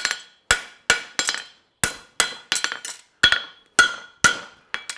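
A hammer striking a steel horseshoe on an anvil: about a dozen sharp blows at roughly two a second, each followed by a bright metallic ring.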